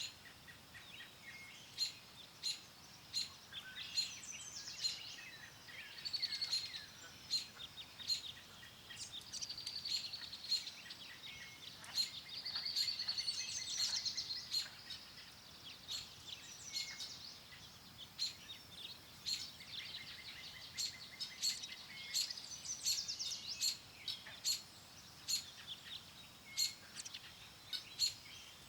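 Several songbirds singing and chirping together: one bird repeats a short sharp chirp about once or twice a second while others add warbling song phrases, over a faint steady hiss of wind.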